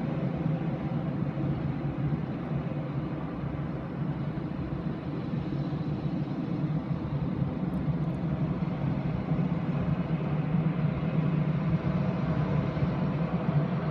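Boeing 737-800's CFM56 turbofans at low taxi power: a steady, even rumble with a faint high whine.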